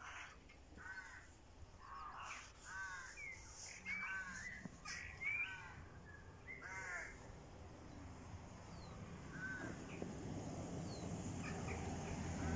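Domestic cat meowing over and over: a quick run of short rising-and-falling meows, then a couple of fainter ones in the second half.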